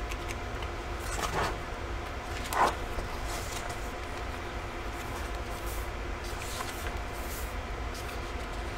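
Pages of a softcover book being turned and handled: several short paper rustles, the loudest about two and a half seconds in, over a steady room hum.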